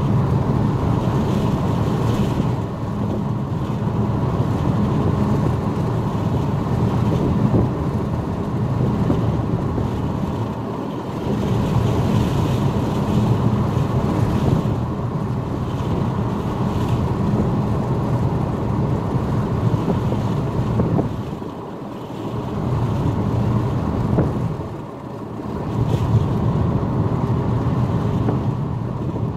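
Steady low rumble and wind noise heard from inside a moving car, mixed with the rolling of a double-stack intermodal freight train on the track alongside. The level dips briefly twice near the end.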